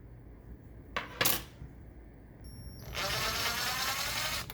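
Two light clicks, then about a second and a half of scraping and rustling near the end, as the old paper towel holder is worked off its mount.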